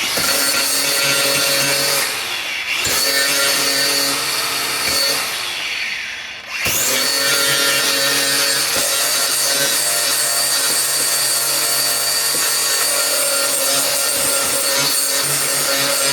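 Angle grinder running against steel, a steady motor whine over grinding noise. It eases briefly twice, about two seconds and six and a half seconds in, then carries on.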